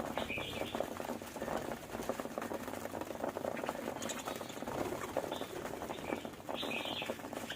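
Budgerigars chattering and warbling: a steady, fast run of clicks and burbles, with short, higher chirps breaking in several times. The loudest chirps come near the end.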